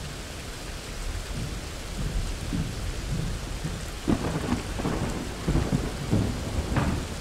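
Steady rain with thunder rumbling. The rumble builds from about a second in and comes in heavier, uneven rolls in the second half.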